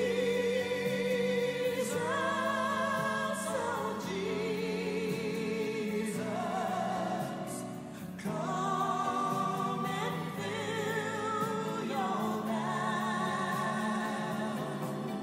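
Slow hymn sung with strong vibrato on long held notes, with piano accompaniment.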